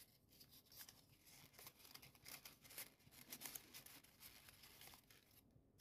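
Faint rustling and light crinkling of folded paper as origami units are handled and slotted together, in scattered soft bursts through the middle, dying away near the end.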